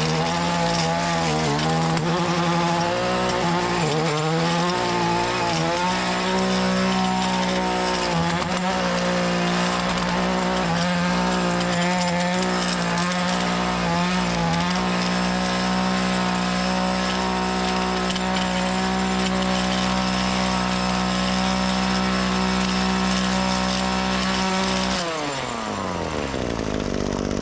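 Small two-stroke engine of a gas edging tool running at high revs. The revs waver up and down for the first few seconds, then hold steady, and near the end the throttle is released and the engine winds down to a lower speed.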